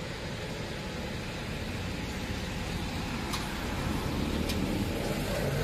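Road traffic: a car's engine and tyre noise grow steadily louder as it approaches.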